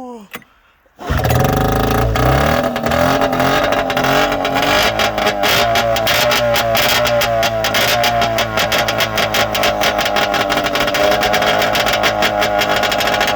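2000 Arctic Cat ZL440 snowmobile's two-stroke twin, straight-piped with no muffler, catching about a second in after being flooded and running loud and rapid-firing. Its pitch climbs and wavers over the first few seconds, then it settles into steady running.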